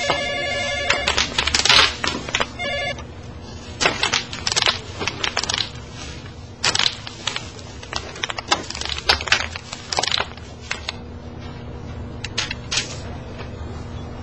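Bubble wrap being twisted and squeezed, its bubbles popping in irregular clusters of sharp cracks. A telephone rings during the first second and briefly again about three seconds in.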